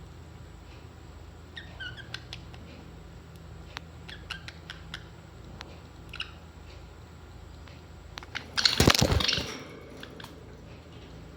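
Pet parrots giving a few short, high chirps and some light clicks over a steady low hum. About two thirds of the way through comes a loud, second-long burst of rustling noise, the loudest sound here.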